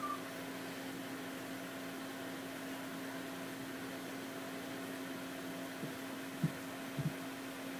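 Steady low hum and hiss of room background noise, with a few faint short low sounds near the end.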